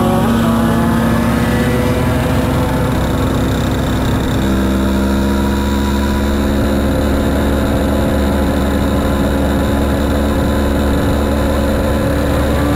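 Several small moped engines running steadily at road speed, heard close up from the back of one moped in a group ride. About four and a half seconds in, the engine note shifts to a new steady pitch.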